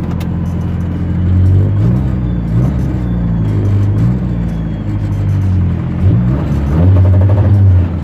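A Fiat 147's four-cylinder engine heard from inside the cabin through its modified exhaust: a turbo-style muffler with a short downturned tailpipe added. It idles steadily for about a second and a half, then revs up and down several times as the car pulls away, with a steadier run near the end.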